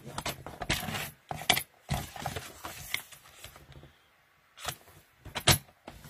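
A paper trimmer's sliding scoring head run along its rail to score a sheet of cardstock, with several sharp clicks and knocks and some scraping as the card is shifted and the head is moved. There is a short quiet pause a little past the middle.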